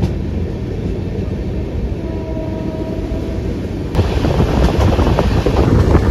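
Passenger train coach running at speed with a steady rumble of wheels on track. About four seconds in it suddenly gets louder and rougher, with wind buffeting the microphone, as the sound comes from the open doorway beside the coach.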